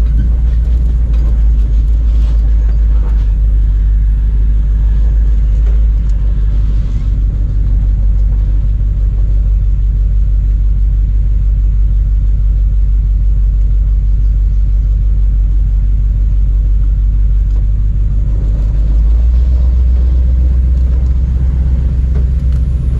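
A 4x4 off-road wrecker's engine running steadily as it drives, a loud low rumble. The engine note changes about nineteen seconds in.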